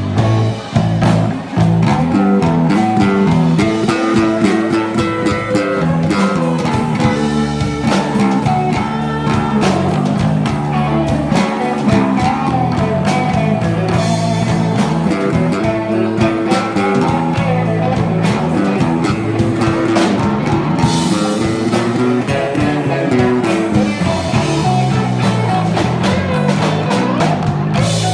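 Live band playing amplified music: electric guitar, electric bass, saxophones and drum kit, with a steady bass line.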